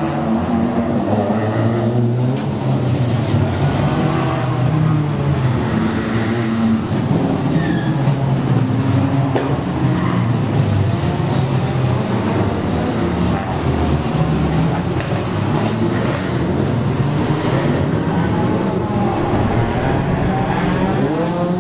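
Small touring race cars, Toyota Vios and Honda hatchbacks, accelerating out of a corner one after another. Several engines overlap in a continuous stream, their notes rising and falling as each car passes.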